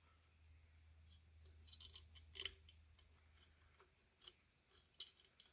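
Faint, scattered light clicks and taps of small M5 screws and hub parts being handled, with a low hum underneath.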